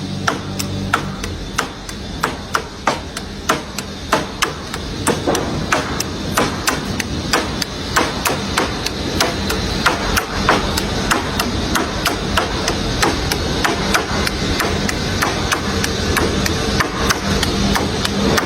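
Repeated hammer blows, about two or three a second and uneven in spacing, over a steady background noise of a work site.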